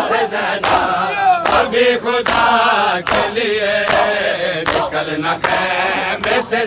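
Men chanting a Shia noha lament together, with a crowd beating their chests in matam: a steady beat of hand slaps a little more than one a second under the voices.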